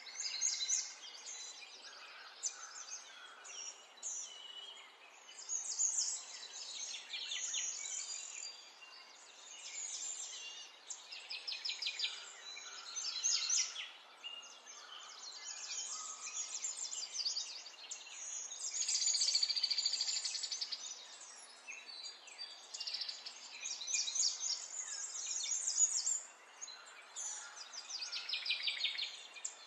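Birds chirping in quick repeated high trills that come and go.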